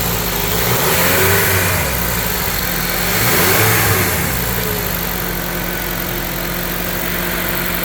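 2013 Honda CR-V engine revved up and back down twice in quick succession, then settling to a steady idle.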